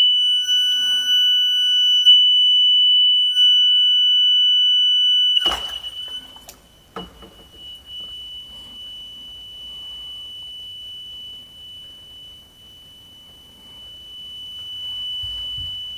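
A malfunctioning end-of-life smoke detector sounds a constant high-pitched tone. About five seconds in, it goes into a bucket of water with a splash. The tone keeps going under the water, much quieter.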